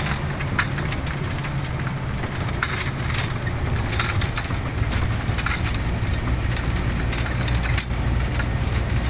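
Steady low running drone and road rumble of a moving vehicle, under an even rushing noise with scattered short clicks and knocks.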